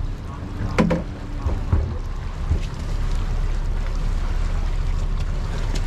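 Steady low rumble of a boat's outboard motors idling, with wind on the microphone. A couple of short knocks come in the first two seconds, as a cooler is handled.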